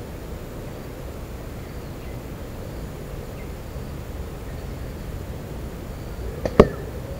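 A slingshot shot striking the small hanging target, one sharp hit with a short ring about six and a half seconds in, just after a fainter snap. Steady woodland background hiss underneath.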